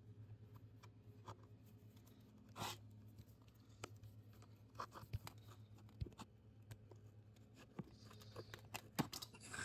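Faint, scattered clicks and scrapes of a rubber fuel line being worked off a Stihl 021 chainsaw by hand, over a low steady hum.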